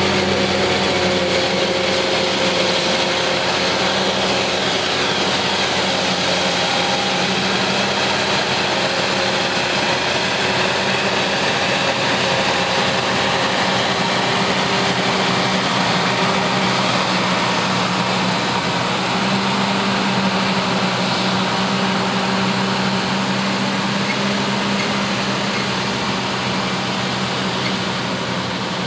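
New Holland FR9060 forage harvester chopping maize with its Kemper 460 header and blowing it into a trailer, with a Fendt 820 Vario tractor running alongside. Steady engine tones sit under an even rushing noise, easing slightly near the end.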